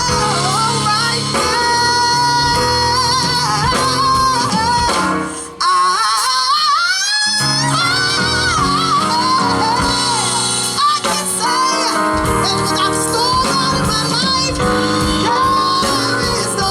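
Live gospel music: a high lead voice singing ornamented runs over band accompaniment. The bass and band drop out for a couple of seconds about a third of the way in while the voice slides upward, then they come back in.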